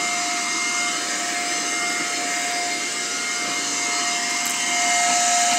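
Vacuum cleaner running on carpet: a steady motor whine over a rushing hiss of air, a little louder about four and a half seconds in.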